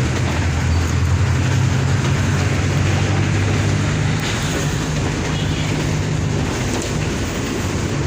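Diesel engine of a Mercedes-Benz OF 1722M bus running steadily with a low drone that eases slightly about halfway through.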